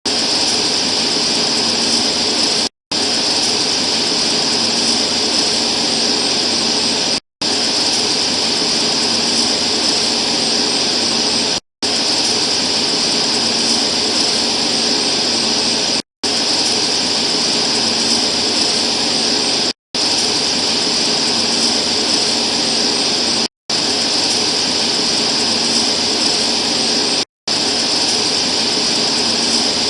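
Steady loud hiss with a strong high band, like a heavily amplified recording of a quiet room at night. It cuts to total silence for a split second about every four seconds, as where separate pieces of recording are joined.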